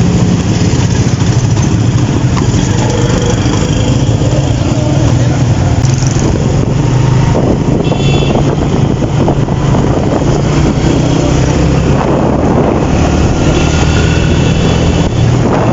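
Road vehicle engine running steadily while travelling, with road noise.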